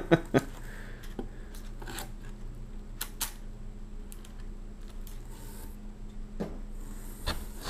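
Scattered light clicks and knocks of unpacking: spars and foam wing parts being handled and knocking against a cardboard box, over a faint steady low hum.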